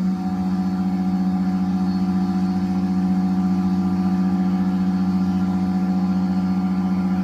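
Proxxon spindle motor on a homemade CNC router running at high speed with a steady hum while milling plywood; it grows a little louder in the first half second, then holds steady.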